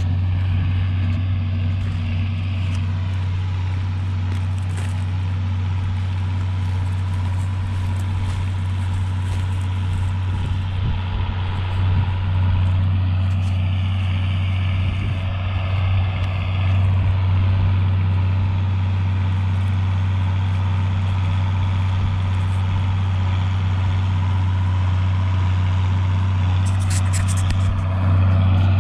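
John Deere tractor's diesel engine running steadily with a deep, even drone, a little louder near the end.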